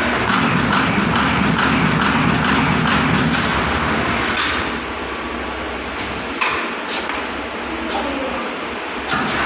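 Playing-card cutting and collating machine running with a dense mechanical clatter, heavier for the first four seconds and again near the end, with a few sharp knocks in the quieter stretch between.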